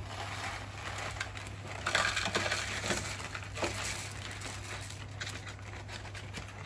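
Plastic zip-top bag crinkling as crushed dry instant noodles are poured out of it into a paper cup-noodle cup, the fragments crackling and rattling, loudest about two seconds in.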